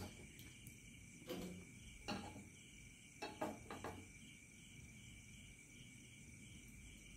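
Quiet kitchen sounds: a few soft clicks and knocks as a gas burner is lit and a nonstick kadai is set on its grate, most of them a little over three seconds in. Under them runs a faint steady high-pitched drone.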